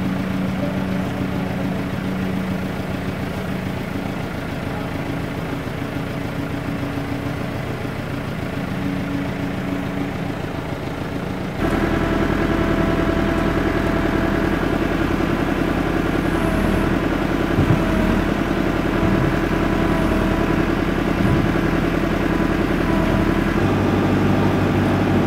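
Engine-driven vertical TMR feed mixer wagon running steadily, a constant machine hum. About halfway through it cuts abruptly to a louder, steady run with a changed engine note.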